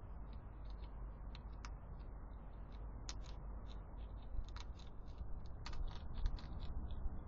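Hedgehogs crunching dry food from a feeding tray: irregular sharp clicks and crackles, thicker in the second half, over a steady low hiss.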